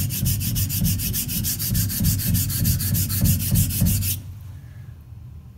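Straight razor's steel blade and spine scraping in quick back-and-forth strokes on a coarse Atoma 400 diamond plate, blending the spine with the edge to correct the blade's geometry. The gritty rasping stops abruptly about four seconds in.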